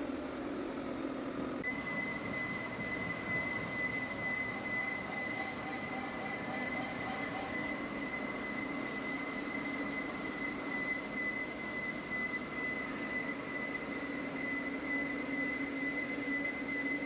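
Lathe running while machining a stainless steel pump shaft, with a steady low hum and a steady high-pitched whine that comes in about two seconds in and holds.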